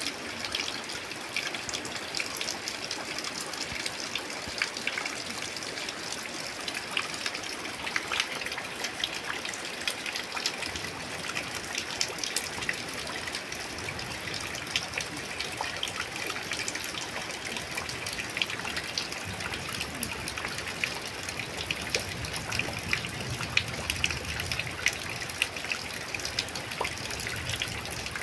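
Light drizzling rain: a steady patter of many fine drops, with a continuous hiss underneath.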